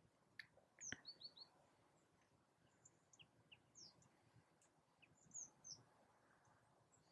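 Faint, scattered high chirps of small birds calling, a few short notes at a time, with a soft click about a second in.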